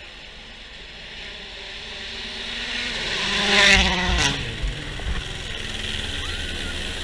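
A rally car approaching at speed, its engine growing steadily louder, then passing close about three and a half seconds in with a quick drop in pitch. Two short bangs follow as it moves off up the road.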